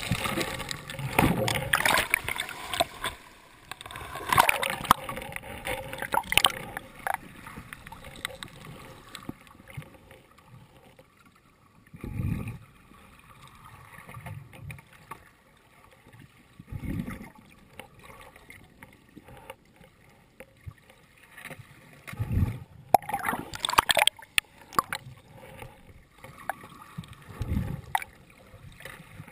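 Shallow surf heard underwater through a waterproof camera housing: waves surge over rocks with rushing, bubbling water. Dull low thumps come about every five seconds.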